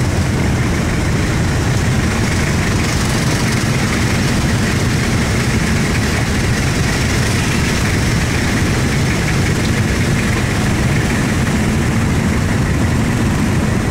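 Motorbike engine running steadily with road noise, heard from on board the moving bike.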